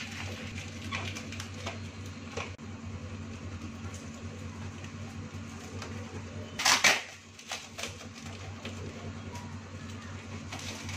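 Hands handling a cardboard box tied with raffia string: scattered small rustles and knocks, and one louder brief scrape of cardboard about seven seconds in, over a steady low hum.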